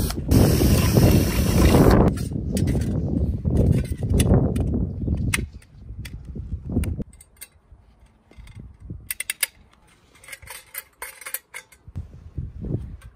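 Makita cordless drill running at speed as its bit cuts through a thin stainless steel bracket, loudest for the first two seconds and carrying on more roughly until about five seconds in. After that come light scattered clicks and clinks of small metal parts being handled.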